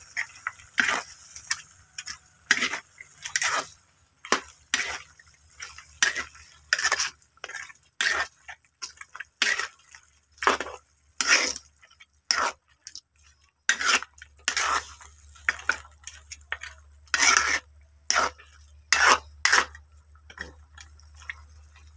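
Metal ladle scraping and clanking against a wok while stirring pieces of pork, in short irregular strokes about once or twice a second.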